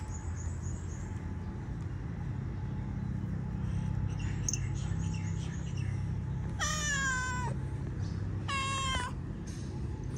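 Calico cat meowing twice, a longer meow and then a shorter one, each falling slightly at the end, over a steady low background hum.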